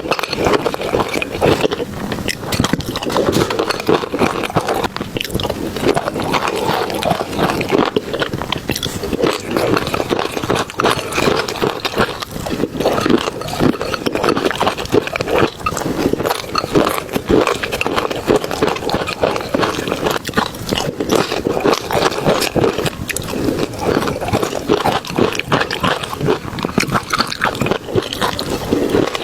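A person chewing and eating noisily close to the microphone, with continuous wet crunching and smacking.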